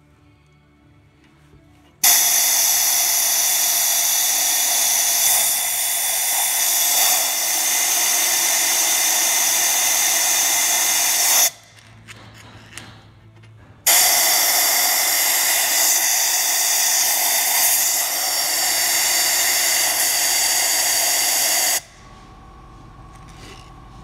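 Compressed air hissing in two long blasts of about nine and eight seconds, with a short pause between, blown into the ports of a Ford Mondeo 2.0 petrol cylinder head. It is a leak test of the valves, which the owner says are not seating after a faulty head repair.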